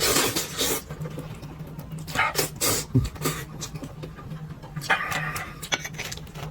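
A person eating noisily into a close microphone: three loud slurps of about half a second each, spread a couple of seconds apart, with smacking and chewing clicks between them.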